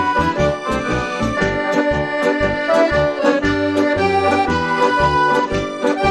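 Hohner piano accordion played solo: a melody on the right-hand keys over short, regular bass notes and chords from the left-hand buttons.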